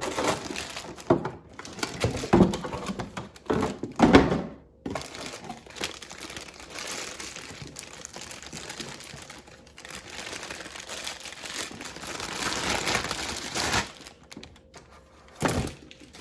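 Packaging being handled while the blow-dryer brush is unboxed: a few knocks and taps, then a long stretch of crinkling and rustling, and a single thump near the end.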